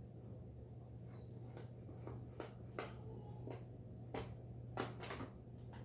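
Faint, irregular soft clicks and rustles of hands smoothing wet paper mâché strips onto a rubber balloon, over a steady low hum.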